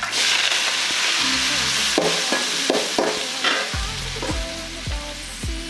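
Food sizzling in hot oil in a pan: a loud burst of sizzling that starts suddenly and dies down over about three seconds, then background pop music with a steady drum beat.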